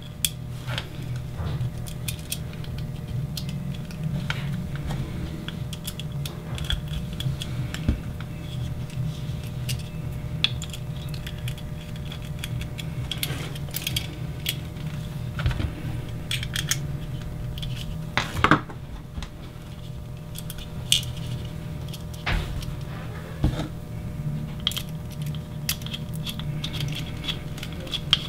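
Small metal parts clicking and tapping as servo block side supports are fitted against a servo and their small bolts are screwed in with a screwdriver, over a steady low hum. There is one sharper click about two-thirds of the way in.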